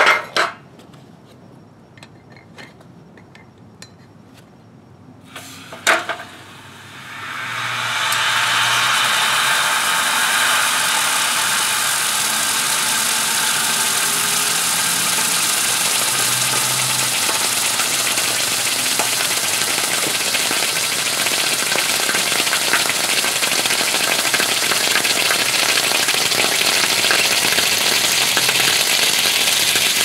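A few sharp metal clinks as a hot aluminum ingot is handled and set down in a metal pan. Then, about seven seconds in, a loud steady fizzling hiss begins as the hot ingot sits in cold water: a cushion of steam around it (the Leidenfrost effect) holds off proper boiling.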